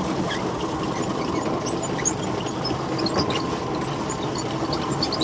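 Yamaha 150 outboard motor idling steadily, with light high ticks and chirps scattered over the hum.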